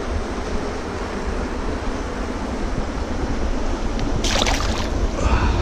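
Wind rumbling on the microphone over water lapping among shoreline rocks, with a short splash about four seconds in.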